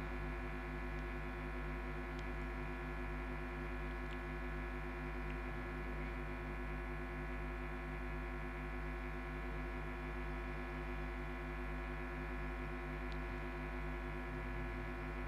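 Steady electrical hum from a microphone sound system: a low, unchanging buzz with many even overtones and no voices.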